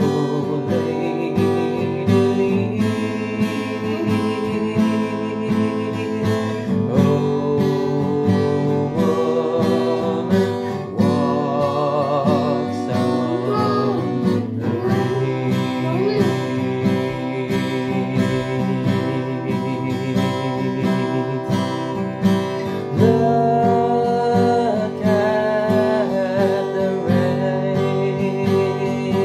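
A man singing while strumming an acoustic guitar, the sung notes wavering with vibrato over steady chords.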